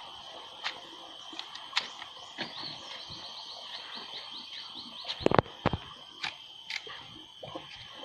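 Sharp knocks and snaps from a green banana bunch being handled and its hands worked off the stalk, loudest a little past halfway. Under them a steady high hum, and in the middle a run of quick high chirps, about four a second.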